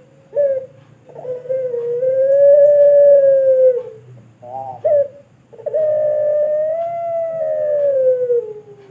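Puter pelung dove, a domestic Barbary dove bred for a long call, cooing: two long drawn-out coos of about three seconds each, each slowly falling in pitch at its end and each preceded by short clipped notes.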